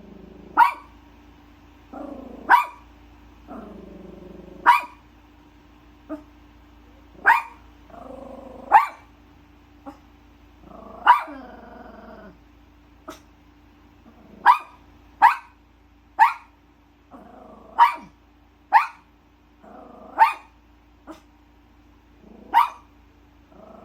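Small Maltipoo dog barking and growling at a running electric fan, which frightens it: sharp single barks about every second or two, with low growls in between. A steady low hum, likely the fan, runs underneath.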